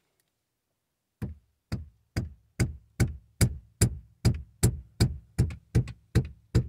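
Rubber mallet striking a Ford Mustang S550's manual shift knob, driving it back down onto the six-speed shift lever before it is fully seated. After about a second of quiet, the thuds start at a steady rate of about two and a half a second, getting louder over the first several blows.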